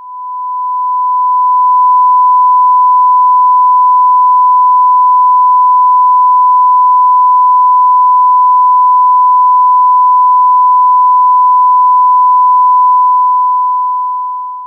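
A steady 1,000 hertz broadcast test tone: the pure sine signal of "bars and tone", used to calibrate broadcast equipment on the air. It is loud and horrible to hear. It fades in over the first two seconds and fades out near the end.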